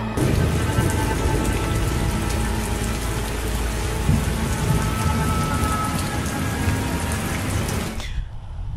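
Dense hissing, crackling noise over a low rumble, a rain-like horror-film sound effect that cuts off suddenly about eight seconds in.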